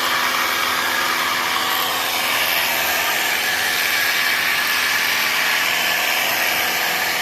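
Ecosen portable jet cleaner running steadily: an even motor hum under the hiss of its water spray.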